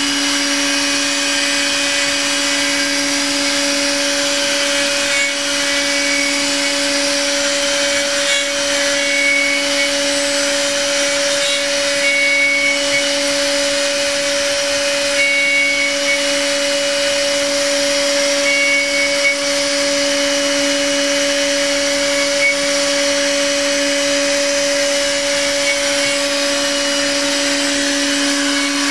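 CNC milling machine spindle running at 17,000 rpm with a steady whine, a 6 mm ball-end mill cutting a Z-level pre-finishing pass with a continuous hiss of cutting. Short higher whistles come and go.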